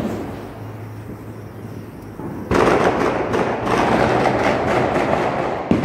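Hand-held firework burning with a loud, dense crackling hiss of sparks that starts suddenly about halfway through and lasts about three seconds, with a sharp knock near the end.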